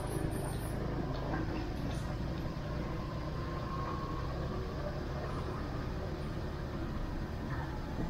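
Motorbike underway, heard from on the bike: a steady, even run of engine, road and wind noise, heaviest in the low rumble.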